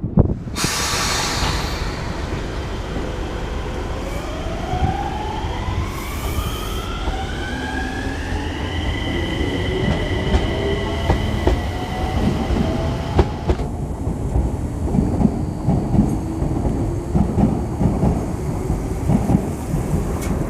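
Enshu Railway 2000-series electric train accelerating: its traction motor whine rises in pitch over several seconds, then holds steady. In the second half the whine fades and the wheels rumble and knock over the rail joints.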